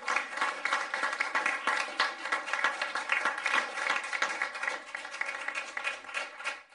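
Audience applause: many hands clapping in a steady patter that fades out near the end.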